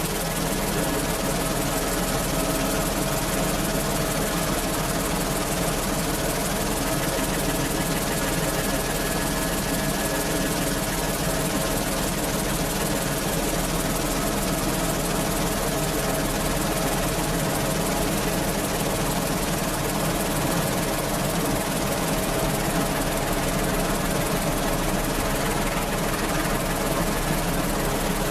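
Merlin helicopter running steadily: a constant drone of turbine engines and rotors with a steady whine of several held tones, unchanging throughout.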